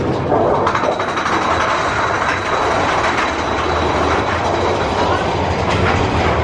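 Big Thunder Mountain Railroad mine-train roller coaster running along its track: a steady rumble and clatter from the cars and wheels.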